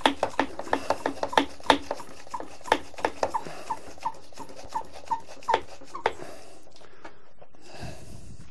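Hand-pump brine injector being pumped up with air. Its plunger clicks and squeaks several times a second, then stops about six seconds in.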